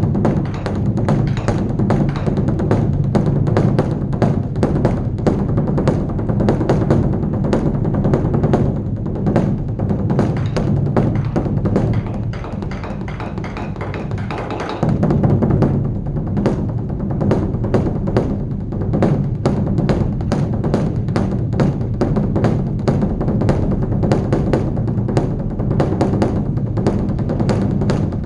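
Large Buddhist dharma drum (beopgo) beaten with two sticks in a fast, continuous run of strokes at the evening temple service. The beating drops to softer strokes for a few seconds near the middle, then comes back loud.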